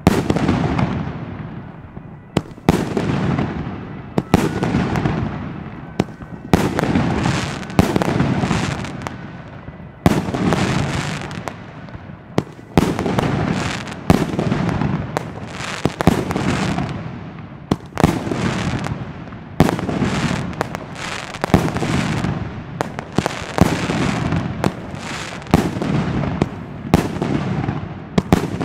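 El Gato Sonora 25-shot salute battery firing shot after shot: a steady series of loud bangs, about one a second, each followed by a rolling echo.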